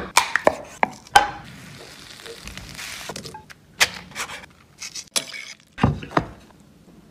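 Kitchen cutting sounds: a chef's knife chops several times through a cooked lobster shell onto a wooden cutting board in the first second or so. A stretch of soft rustling follows, then more scattered knocks and thuds on the board.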